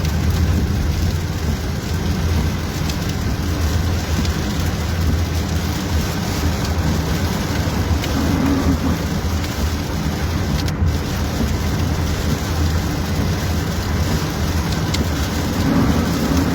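Steady low rumble of a vehicle with an even hiss over it, unchanging throughout.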